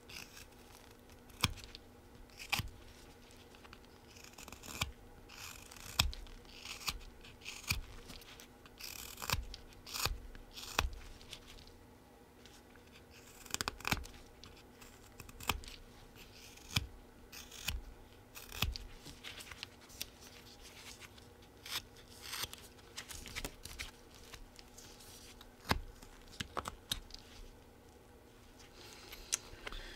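Flexcut Whittlin' Jack folding knife slicing chips off a small wooden bee carving: a run of short, crisp cuts at irregular intervals, about one a second, with a short pause near the end.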